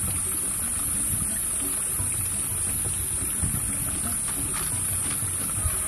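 Steady low hum like a small engine, with a constant high-pitched hiss over it and a couple of faint knocks.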